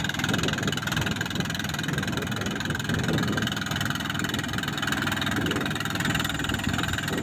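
A fishing boat's truck-derived inboard engine idling steadily with a constant low rumble.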